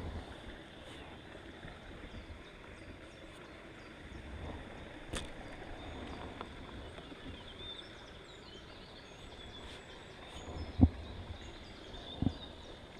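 Pond-side outdoor ambience: small birds chirping faintly and a low rumble of wind on the microphone, with a sharp click about five seconds in and two dull knocks near the end from fishing tackle being handled.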